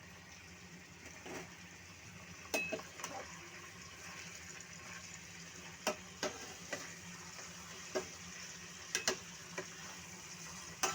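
Chicken frying in a pan with a soft, steady sizzle, while a cooking utensil knocks and scrapes against the pan about ten times as the food is stirred.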